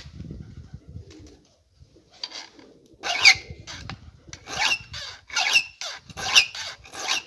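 Chainsaw chain file drawn across the cutters of a Stihl MS 500i's chain: five short scraping strokes, a little under a second apart, starting about three seconds in.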